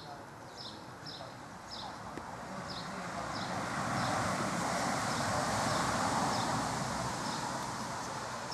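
A small bird calling over and over with short, high, falling chirps that fade out after the first few seconds. Under it, a broad rushing noise, such as a passing vehicle or wind, swells to a peak in the middle and eases off again.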